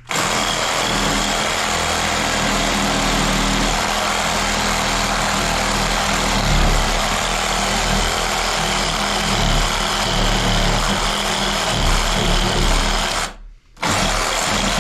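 A power tool running steadily and loudly, cutting out for a moment about a second before the end and starting again.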